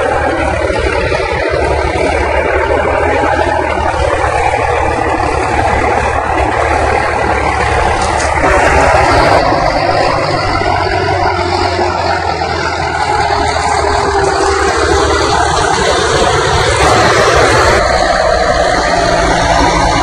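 New Holland 3630 tractor's three-cylinder diesel engine running steadily under heavy load while pulling a plough deep through the soil.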